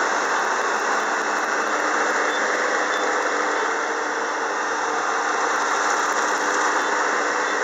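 Kubota combine harvester running steadily while cutting lodged rice: a dense, even mechanical noise of engine, cutter and threshing gear under load.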